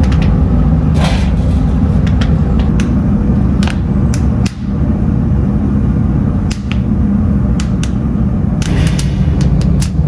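Heavy factory machinery running with a loud, steady low rumble, with scattered sharp clicks and knocks throughout.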